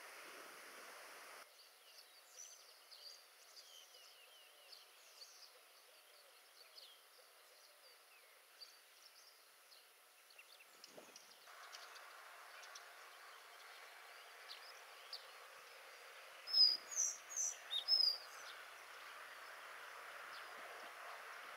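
Collared flycatcher singing one short, high phrase of a few thin, gliding notes about three-quarters of the way through, the loudest sound here. Fainter high bird chirps are scattered through the first half over a steady background hiss.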